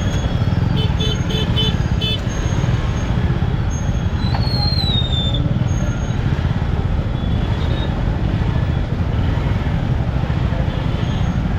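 Motorcycle ride in traffic picked up by a helmet-mounted mic: a steady low rumble of engine and wind, with a few short horn beeps about a second in and a brief tone falling in pitch around four seconds in.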